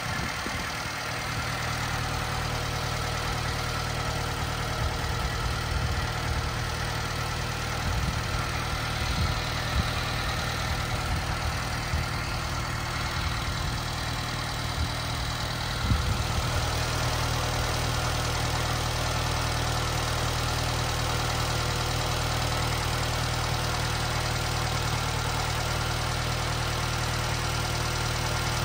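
Subaru Sambar's rear-mounted 658 cc four-cylinder Clover 4 engine running steadily at idle, with a few brief knocks partway through.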